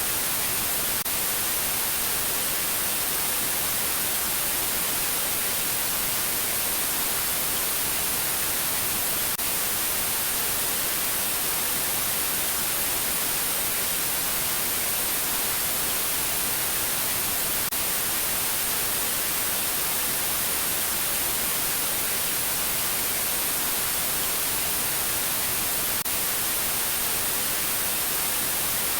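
Steady white-noise static, an unchanging hiss of television snow as from a channel with no signal, strongest in the treble.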